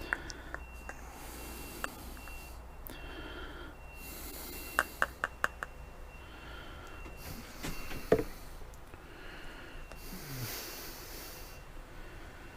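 A man breathing heavily through his nose in several long breaths. Four quick small clicks come about five seconds in, and one sharper knock a little after eight seconds.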